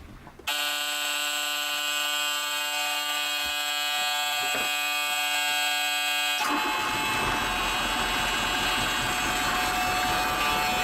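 A newly fitted engine warning buzzer sounds steadily from about half a second in, which signals that the engine still has no oil pressure. About six seconds in, the Perkins 4.108 diesel engine is turned over and its rumble joins the buzzer.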